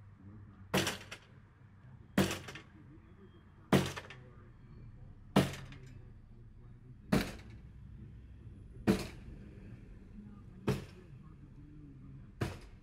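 Eight sharp, ringing blows at a slow, steady pace, about one every one and a half to two seconds: a long-handled tool striking crash debris.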